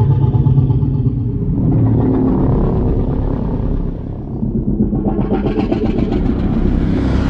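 Godzilla monster vocal sound effect: a deep, rattling growl that turns harsher and brighter about five seconds in, swelling toward a roar.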